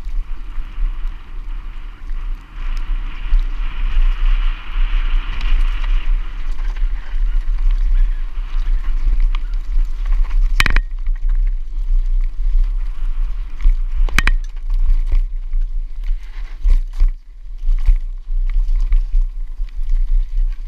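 Mountain bike descending a rough dirt trail: wind rushing over the camera's microphone as a heavy steady rumble, with the tyres and bike rattling over the ground. Two sharp knocks from hits on the trail, about halfway through and a few seconds later, and a few smaller knocks near the end.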